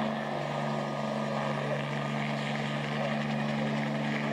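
Crop-spraying helicopter's engine and rotor running with a steady, even hum.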